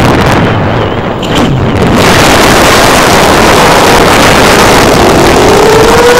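Geprc Mark 4 6-inch FPV quad's motors and propellers in flight, heard as a loud, steady hissing rush over the analog video link. The rush thins for about a second and a half early on, and a faint rising whine comes in near the end.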